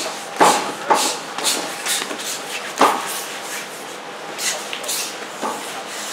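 Sharp thuds on a wrestling ring's mat, three clear hits about half a second, one second and three seconds in, with smaller knocks between them, over scattered shouts in a large hall.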